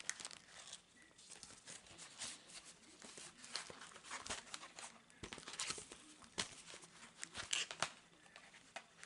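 Packaging crinkling and rustling as it is handled and unwrapped by hand: irregular short crackles and small taps.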